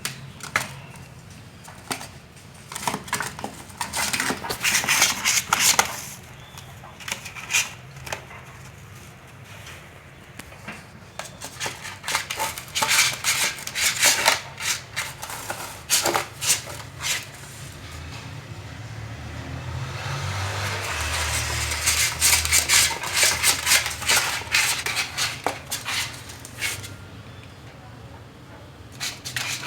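Siamese kitten scratching with its claws: bouts of quick, rasping scratches with short pauses between them.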